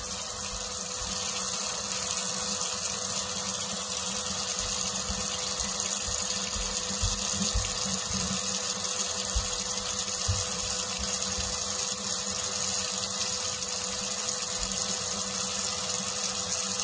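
Kitchen tap running steadily into a stainless steel sink, the stream splashing on the steel and over the drain, with a steady hum underneath.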